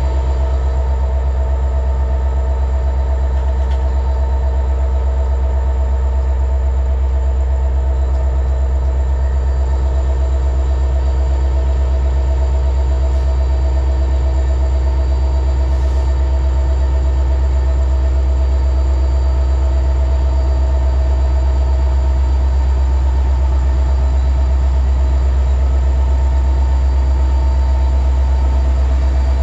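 CSX distributed-power diesel locomotive #4541 working under power as the stopped freight train starts to move, its engine a steady low drone with several held tones, growing slightly louder as it comes closer. Mixed with it is the rumble of freight cars rolling slowly on the rails.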